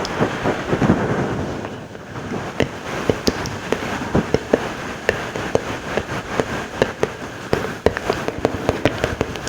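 Close-miked ASMR mouth sounds: a fast, irregular run of wet clicks and smacks, several a second.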